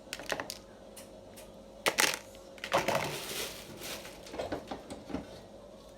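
Plastic packaging crinkling and rustling, with scattered clicks and knocks of rice-cooker accessories being handled.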